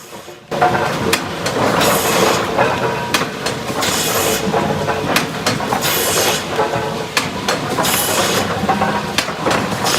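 Sawmill lumber trimmer line running: boards knocking and clattering along the chain conveyors, with a hissing burst about every two seconds. It starts abruptly about half a second in.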